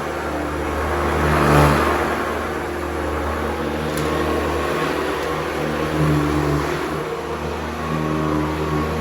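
Hoover Decade 80 upright vacuum cleaner running: a steady motor hum with the low rumble of the beater-bar brush roll. It swells louder about a second and a half in and again around six seconds in.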